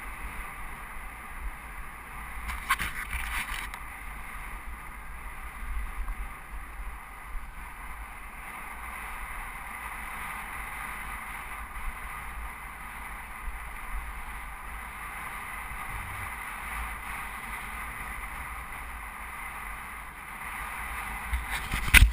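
Helmet-camera sound of a motorcycle riding down a gravel track: a steady, muffled mix of engine, tyres on gravel and wind on the microphone. A few sharp knocks come near the end.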